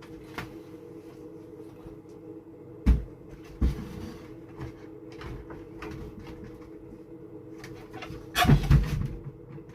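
An old shelf being knocked and shifted into place, with a few single knocks and then a louder cluster of clattering knocks near the end, over a steady low hum.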